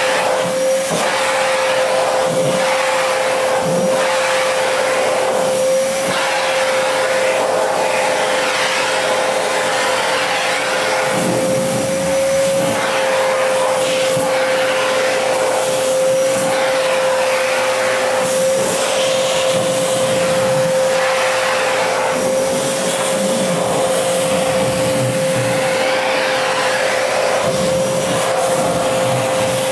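Vacuum cleaner running steadily with a constant whine, its floor nozzle drawn back and forth over a long-haired cat's fur, so the rush of air changes a little with each stroke.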